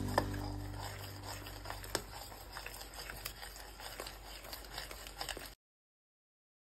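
Jaggery syrup boiling in a stainless steel pot, with faint, irregular small pops and clicks from the bubbling syrup and a spoon stirring it, as it is cooked down toward a sticky, thread-forming syrup. A music track fades out in the first second, and the sound cuts off to silence about five and a half seconds in.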